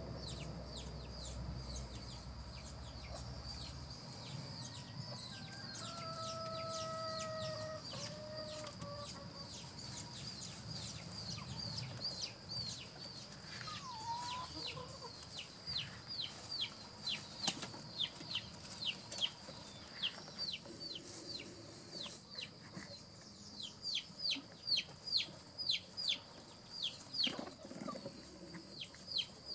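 Birds calling: a long run of short, high, falling peeps, two or three a second, over a steady high whine, the peeps growing louder toward the end.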